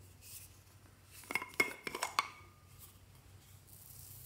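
A quick run of about five sharp, ringing clinks as a small container with a metal rim is opened and handled over a glass dish. Near the end, a soft steady hiss begins as small beads start pouring from it into the glass dish.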